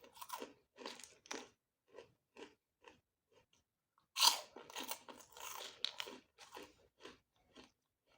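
A person chewing crunchy food close to the microphone, in short crunching chews about two a second. About four seconds in comes a loud crunching bite, followed by a run of denser crunchy chewing.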